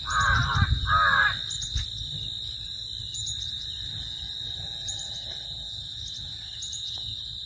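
Two harsh crow caws, one after the other in the first second and a half, over a steady high insect chirring.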